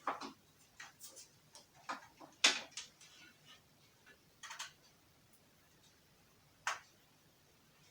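A scattered series of sharp plastic clicks and taps from an HDMI cable being handled and its plug pushed into a port, with the loudest click about two and a half seconds in and a lone click near the end.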